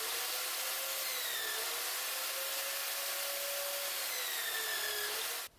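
Motor-driven polishing wheel spinning with a steady whine and hiss as a steel knife blade is held against it to polish it. The pitch sags slightly and recovers as the blade is pressed in, and the sound stops abruptly near the end.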